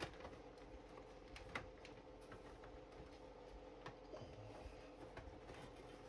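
Faint, scattered light clicks and taps of plastic model parts being handled as a long styrene submarine hull half and its deck are fitted together, over a faint steady hum.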